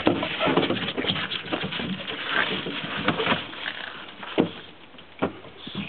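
A dog scrambling after a fish: irregular knocks and scuffling, with one sharp knock about four and a half seconds in, then quieter.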